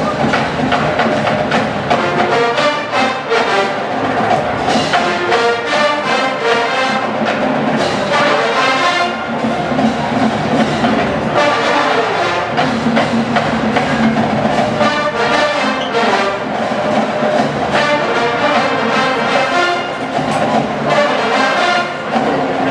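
College marching band playing on the field: brass melody over marching percussion.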